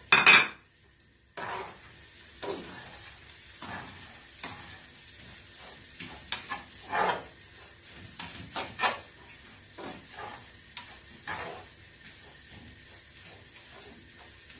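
A spatula stirring rice, onion and chestnut stuffing in a frying pan, with irregular scraping strokes every second or so over a steady sizzle. It opens with one sharp knock.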